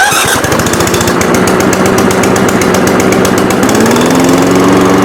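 Cobra DG450 135cc overhead-valve petrol engine on a lawnmower running steadily on choke just after an electric key start. Its note rises slightly about four seconds in.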